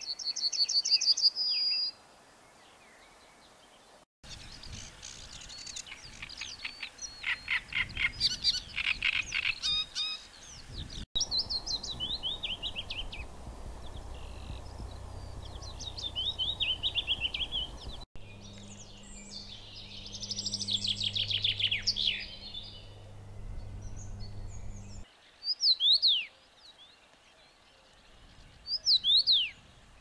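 Songs of five European songbirds in turn. First a yellowhammer's quick string of notes ending in a long drawn-out note, then a great reed warbler's harsh, croaking repeated phrases, then a willow warbler's soft descending cascade. After that comes a chaffinch's falling trill ending in a flourish, and last a common rosefinch's short whistled phrase, given twice.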